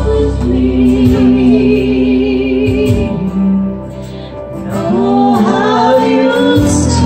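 A man and a woman singing a duet into handheld microphones over backing music, holding long, wavering notes. The singing drops quieter for about a second midway, then comes back in.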